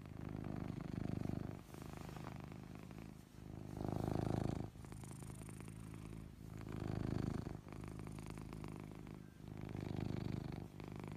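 Ragdoll cat snoring in deep sleep: a low rumble that swells louder four times, about once every three seconds, with its breathing.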